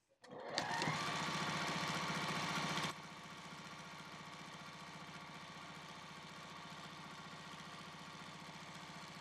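Electric sewing machine stitching a seam at a steady fast speed, winding up to speed at the start. About three seconds in it drops noticeably quieter and keeps running evenly.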